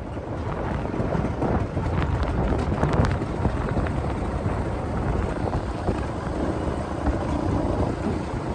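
Wind buffeting the microphone outdoors: a steady low rumble, with a few sharp crackles about two and three seconds in.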